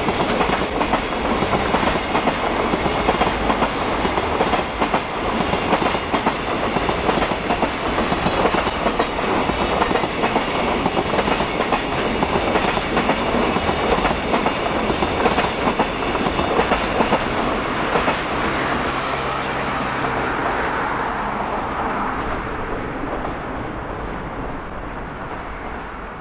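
Container wagons of a JR Freight train (Koki flatcars) rolling past, their wheels clacking over rail joints. From about two-thirds of the way through, the clacking thins out and the sound steadily fades as the end of the train goes by.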